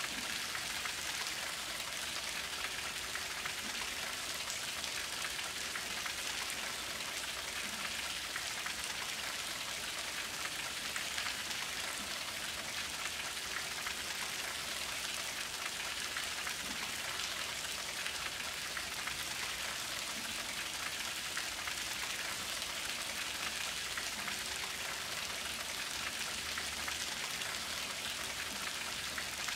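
Steady rain falling, an even hiss that neither builds nor fades.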